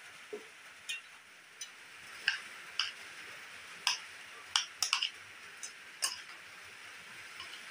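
A metal spoon clinking against a ceramic bowl while a cucumber, tomato and onion salad is tossed. The clicks are sharp and irregular, about one a second, over a steady hiss.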